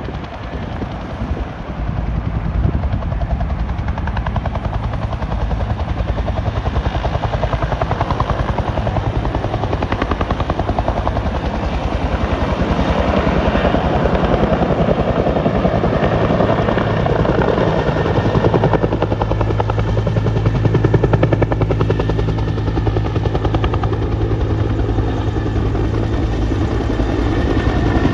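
Helicopter rotors and turbine engines running loud and steady with a fast blade chop, growing heavier partway through as the helicopters power up to lift off.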